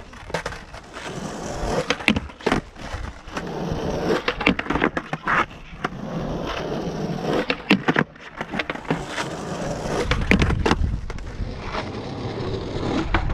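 Skateboard wheels rolling over rough skatepark asphalt, with many sharp clacks and knocks from the board throughout. The rumble grows heavier in the last few seconds.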